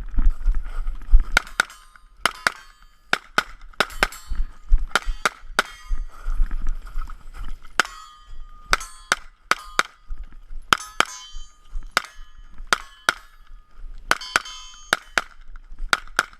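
A string of gunshots fired in quick, uneven succession, roughly two a second, with a metallic ring after each, typical of hits on steel targets.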